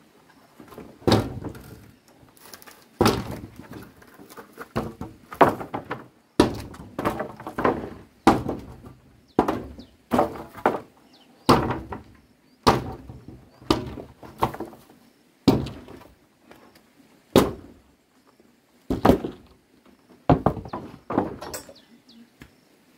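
Repeated heavy knocks, about one every second or so and sometimes two in quick succession, each a sharp blow with a short ring-off, like tool strikes in building work.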